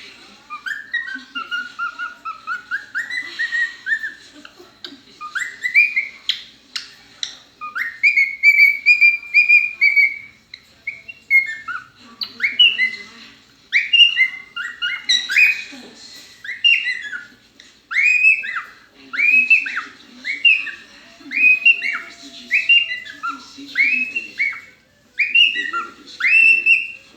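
A pet animal's high whistling cries, repeated over and over. The notes rise and fall, with one long wavering note near the middle, then settle into arching cries about once a second.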